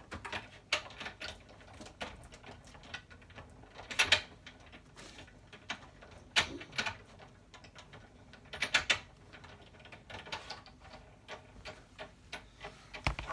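Irregular clicks and clacks of a manual die-cutting machine and its plates being handled as a hot-foil stamp, paper and shim are run through it, with louder clusters about four, six and a half, and nine seconds in.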